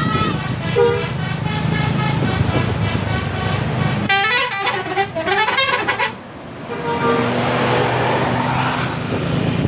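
A bus's multi-tone 'telolet' horn playing a tune of quick stepped notes, with a short break a little after halfway. The bus engine runs steadily underneath.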